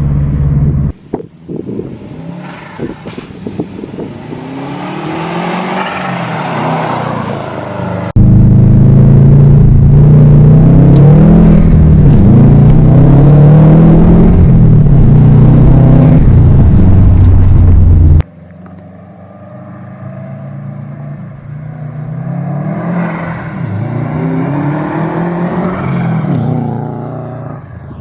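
2012 Subaru WRX's turbocharged flat-four engine accelerating hard in three separate runs, its pitch climbing each time. The middle run, from about 8 to 18 seconds in, is much louder and closer than the other two.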